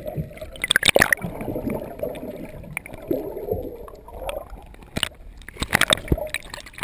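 Underwater sound heard through a submerged action camera's waterproof housing: a muffled gurgling water rumble. Clusters of sharp clicks and knocks come about a second in and again around five to six seconds, as the camera nears the surface among bubbles.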